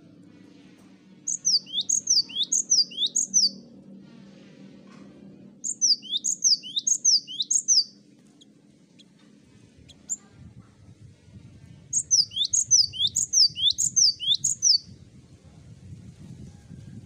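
Cinereous tit (gelatik batu) singing: three bursts of its ringing two-note phrase, each burst repeating the phrase four or five times, a few seconds apart. A low hum runs underneath.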